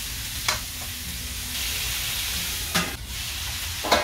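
Pork ribs sizzling in hot oil in a metal wok as they are sautéed, with a metal ladle scraping and knocking against the pan three times as they are stirred, the last knock near the end the loudest.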